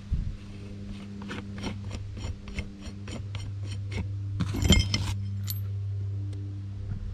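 Steel valve spring compressor (threaded rod, nut and lever) being handled: a run of light metallic ticks, about three or four a second, then a louder ringing metal clink about two-thirds of the way through. A steady low hum runs underneath.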